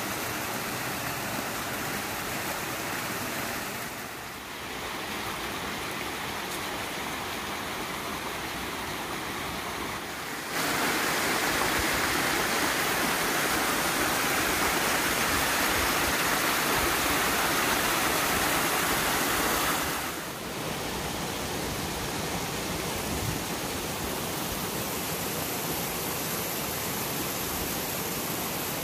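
Small rocky stream running over stones with a small waterfall splashing into a pool: a steady rush of water. It changes abruptly a few times, and is louder and brighter through the middle third, when the falls are closest.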